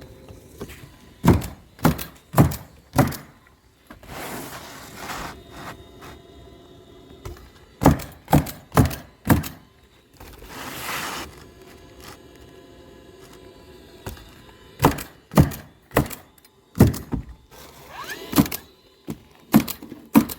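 Roofing nails being driven into asphalt shingles: sharp, loud thunks in quick runs, four strokes about half a second apart, then a pause, then another run. Softer scraping between the runs as the shingles are slid into place.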